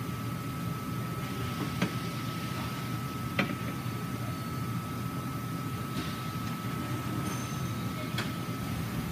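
Steady hum of RF welding press and shop machinery with a thin high whine that cuts off about eight seconds in. A few light clicks and taps come from material being laid on and slid across the press's metal table.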